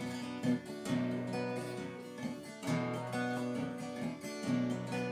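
Song accompaniment on strummed acoustic guitar, an instrumental passage with no singing, the chords changing every second or two.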